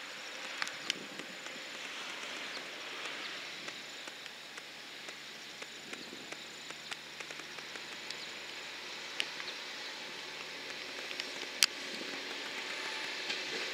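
Faint outdoor ambience: a steady hiss with scattered sharp clicks. It grows slowly louder near the end as a KiHa 47 diesel railcar draws near.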